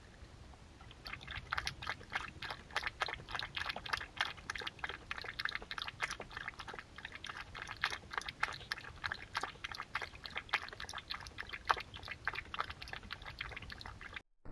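A fox lapping water, a quick run of small wet clicks and splashes, several a second, starting about a second in.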